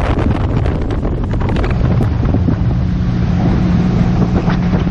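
Bass boat's outboard motor running at speed, with heavy wind buffeting on the microphone and water rushing past the hull; a steady low engine drone stands out from about halfway through.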